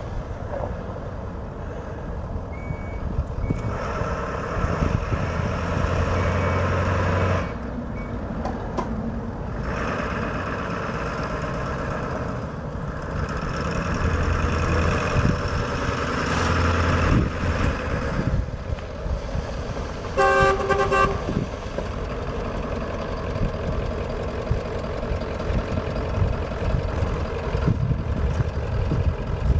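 Ford 7.3 L V8 diesel engine of a 1996 F350 running, louder for a few seconds about 4 s in (cutting back suddenly) and again around 14 s. The truck's horn honks once, briefly, about 20 seconds in.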